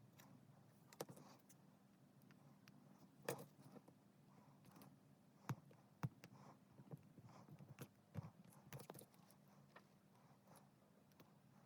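Faint, scattered clicks and light taps from hands working small plastic keyboard keycaps and lead-weight tape, with a few sharper clicks near the middle.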